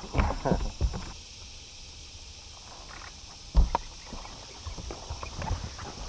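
Footsteps and knocks on a bass boat's front deck: a cluster of thumps in the first second and one heavier thump a little past halfway, over a steady high hiss.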